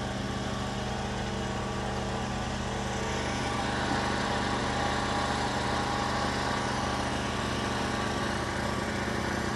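An engine running steadily at a constant speed, getting slightly louder about four seconds in.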